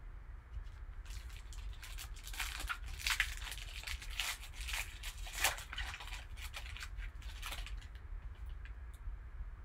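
Foil wrapper of a 2012 Panini Signature Series baseball card pack being torn open and crinkled by gloved hands: a run of crackling tears and rustles starting about a second in, loudest in the middle, dying away near the end.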